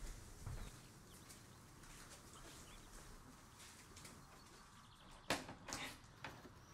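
Quiet outdoor ambience with faint bird chirps. Near the end come two sharp clicks and a softer third, the glass door's latch being worked open.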